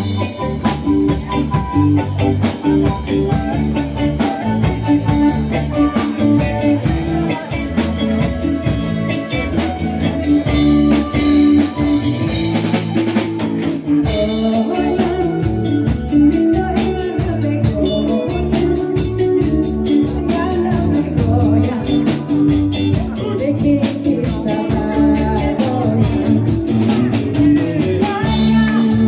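Live band playing dance music: drum kit and guitar over a steady beat, with some singing.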